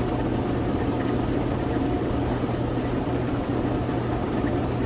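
Steady hum and hiss of fishroom equipment: the air supply and filtration running on a room full of aquarium tanks, with no sudden sounds.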